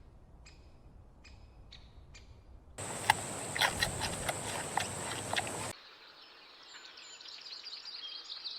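High-pitched animal chirps: four short faint chirps, then a louder stretch with a steady high whine and sharp clicks starting about three seconds in, then faint rapid chirping over the last few seconds.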